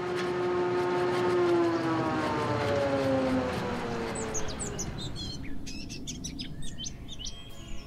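Logo intro sound effects: a pitched, siren-like tone with several overtones that slides down in pitch over the first few seconds. About four seconds in it gives way to high bird chirps and light clicks.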